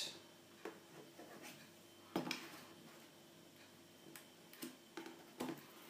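A knife blade slitting the tape seal along the edge of a cardboard box: faint scrapes and light clicks every second or so, the sharpest about two seconds in.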